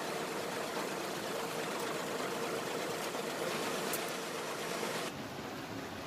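Steady background hiss with a faint hum. The hiss turns duller abruptly about five seconds in.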